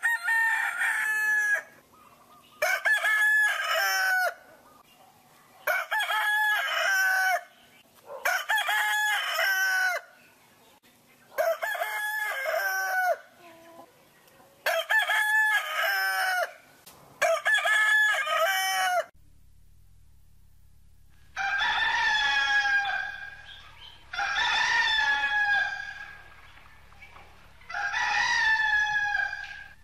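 Rooster crowing over and over: seven short cock-a-doodle-doos about two and a half seconds apart, then, after a brief pause in which a low hum comes in, three longer crows in a different recording.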